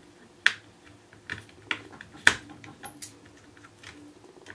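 Small, sharp, irregular clicks and taps of a tool and tiny screws on a tablet's internal parts while the SSD is being screwed back down, about half a dozen, the loudest about half a second in and just after two seconds.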